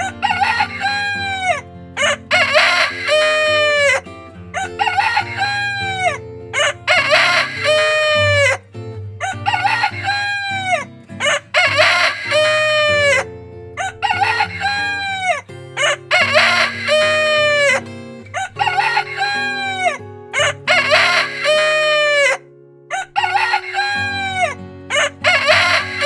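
Roosters crowing over and over, one loud cock-a-doodle-doo after another about every two seconds, each crow rising and then falling away in pitch.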